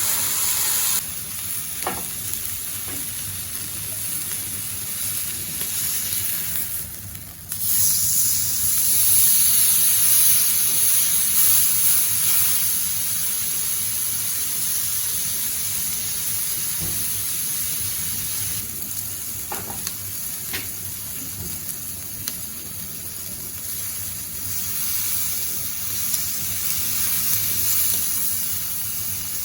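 Watts 100-yen-shop alcohol stove burning with a steady high hiss. The hiss dips briefly about seven seconds in, then comes back louder, with a few faint clicks along the way.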